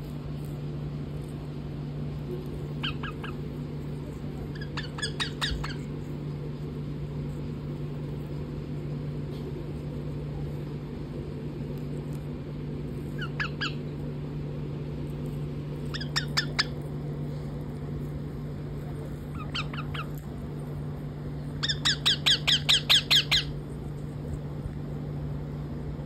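Rose-ringed parakeets giving about half a dozen short runs of rapid chattering calls, the longest and loudest run near the end, over a steady low hum.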